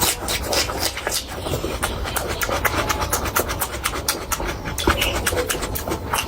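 Close-miked chewing and wet lip-smacking of a person eating curry, a fast run of small clicks and squelches.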